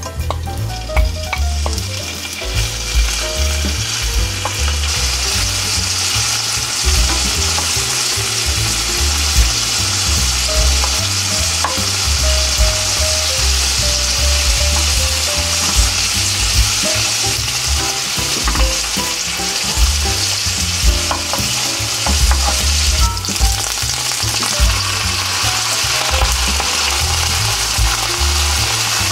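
Bacon pieces sizzling as they fry in olive oil in a frying pan. The sizzle builds from about a second in and is full and steady from about five seconds on.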